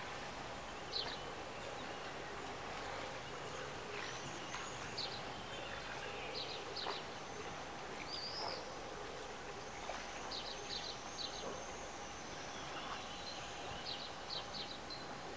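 Waterside ambience: a steady background hiss with a faint constant hum, and small birds chirping in quick runs of three or four notes every few seconds. A few soft taps are heard now and then.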